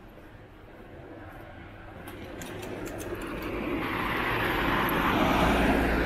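A road vehicle approaching and passing close by. Its tyre and engine noise swells steadily over about five seconds to a peak near the end, then begins to fade.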